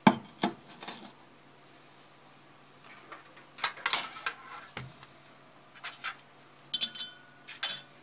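Glass laboratory beaker of water set down on the floor of a stainless-steel microwave oven cavity: a sharp clink at the start and another half a second later, followed by further clinks and knocks inside the metal oven a few seconds in and near the end.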